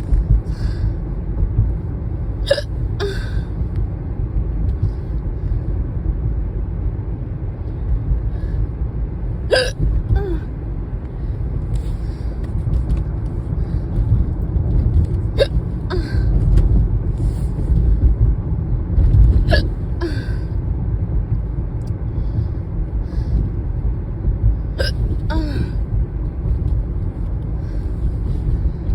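A person hiccuping five times, about every five to six seconds, each hiccup a sharp catch of breath with a short vocal note, over the steady low rumble of a moving car's cabin.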